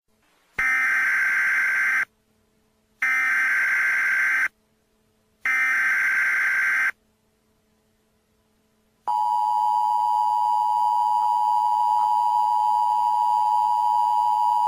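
Emergency Alert System header: three short bursts of warbling data tones, each about a second and a half long with a second of silence between them, announcing an incoming emergency alert. About nine seconds in, the steady two-tone EAS attention signal starts and holds.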